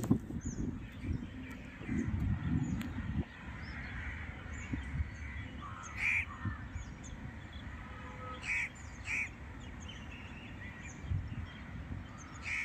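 Crows cawing: several short harsh caws spaced out, the loudest about six seconds in and a pair around nine seconds, over steady outdoor background hiss. A low rumble fills the first three seconds.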